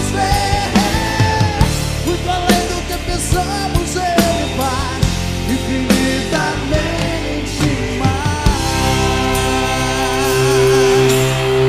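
Live rock band playing: drum kit hits and sustained bass and guitar lines, with a wavering melody over them. In the last few seconds the band holds one long chord, louder, which breaks off at the close.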